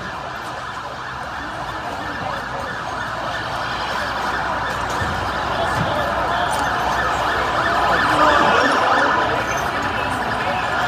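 A fire engine's siren wailing, with shouting from a crowd mixed in, growing louder over the first eight seconds or so.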